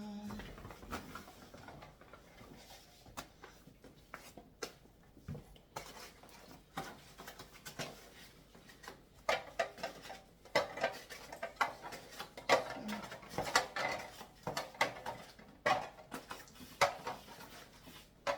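Kitchen clatter: dishes, pots and utensils being handled and set down, a string of clinks and knocks that grows busier about halfway through.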